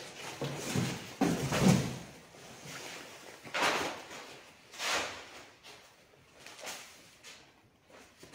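A large sheet of cardboard being handled and set down, with scraping and knocking loudest about a second in, then scattered rustles and knocks as it is left among debris on the floor.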